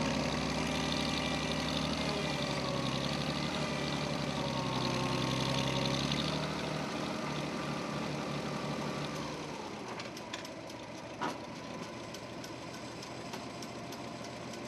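Tractor engine running with a slightly wavering pitch. About two-thirds of the way through it drops to a thinner, quieter mechanical hum with a few clicks.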